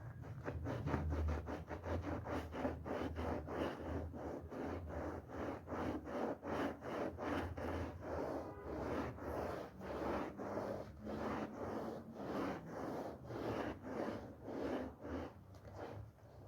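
Wet, foamy woollen rug being scrubbed in quick repeated strokes, about two to three a second, with a rubbing, scratchy sound.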